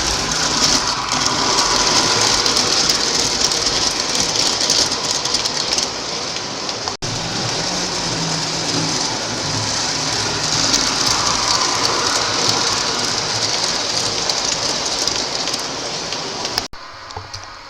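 Lionel O-gauge model subway train running on three-rail track: a steady rushing rumble of wheels and motor. It cuts out for an instant about seven seconds in and falls away much quieter near the end.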